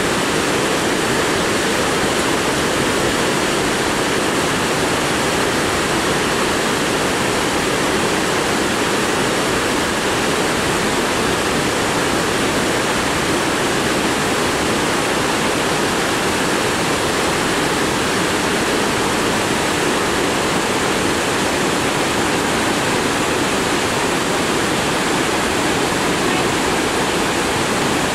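Mountain stream's white water rushing steadily over boulders.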